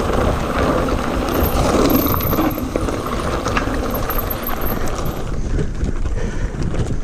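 Mountain bike ridden fast down a dirt and gravel track: tyres rumbling over the ground, the bike rattling, and wind rushing over the camera's microphone. The hiss eases about five seconds in.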